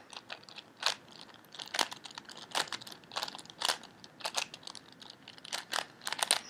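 4x4x4 Rubik's cube being turned by hand: short, irregular plastic clicks of its layers turning, several a second.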